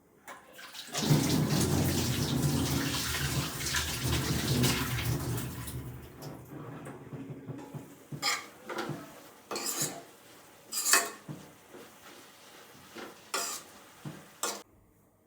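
Water running from a tap for about five seconds, then stopping. This is followed by a series of short clinks and knocks of dishes being handled.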